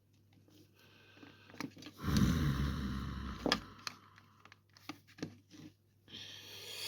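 Handling noises from fitting the small plastic parts of a handheld GPS unit: scattered light clicks and taps, with a longer rustle about two seconds in and another near the end.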